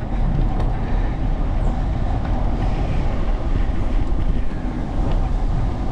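Steady low rumble of a bicycle ride: wind buffeting the microphone and tyres rolling on a paved path.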